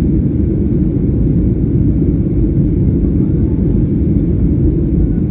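Jet airliner after takeoff: a steady, loud, low rumble of engine and airflow noise, with no changes or distinct events.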